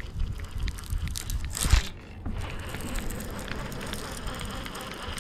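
Close handling noise as a conventional fishing reel is cranked after a bite on the rod: rubbing and scraping with scattered clicks and a sharp knock just under two seconds in, then a steadier rustle with faint ticks.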